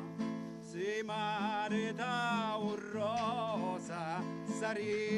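Background music: a song sung in southern Italian dialect, the voice wavering with vibrato over a steady instrumental accompaniment.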